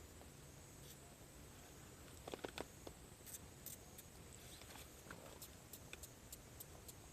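Cedar firewood crackling in a campfire: sparse sharp pops and ticks, with a short cluster of louder pops a little over two seconds in.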